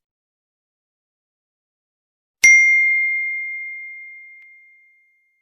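A single bright, bell-like ding struck about two and a half seconds in after silence, a clear high tone that rings on and fades away over about two and a half seconds.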